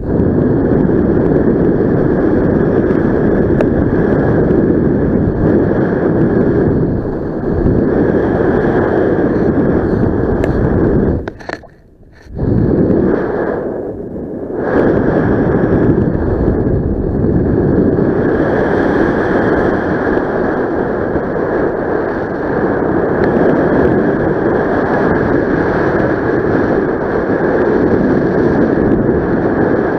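Wind rushing over the camera's microphone in flight under a paraglider: a loud, steady rush that drops away for about a second a little past the middle.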